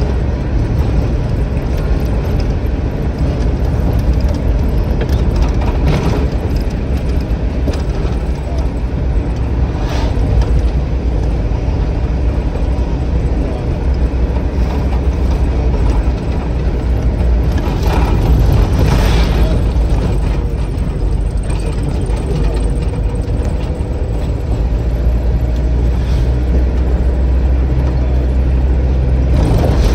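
A moving road vehicle: a steady low rumble of engine and road, with rattles and short knocks every few seconds.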